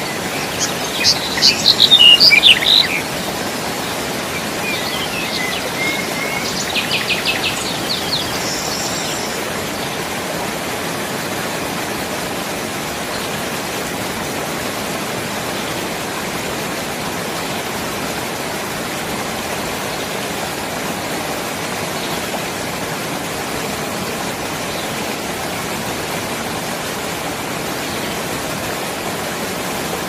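Mountain stream rushing over rocks in a steady rush of water. A songbird sings loud, rapid, high phrases about a second in and a trill around seven seconds in, with a few faint calls later.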